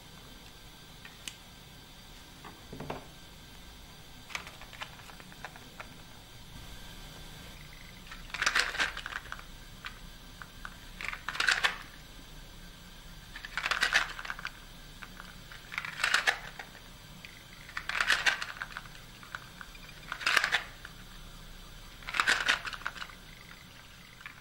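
Handmade Jacob's ladder toy of cardboard matchboxes joined by ribbons, flipped over and over: each flip sets off a short cascade of light clattering as the blocks tumble down the ladder. The cascades come about every two seconds from roughly a third of the way in, after a few faint clicks.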